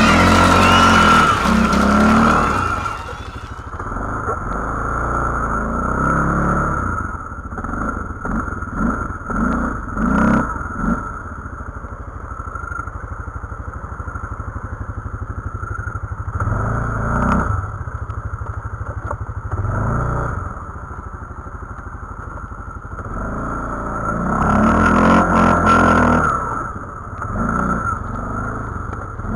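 Can-Am 800 ATV's V-twin engine running on the move, recorded on board, revving up in surges several times and dropping back between them. Music fades out in the first few seconds.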